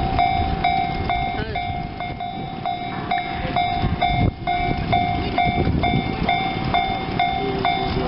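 Japanese railway level crossing's electronic warning bell ringing, an evenly repeating clang about one and a half times a second, over a low rumble of train noise.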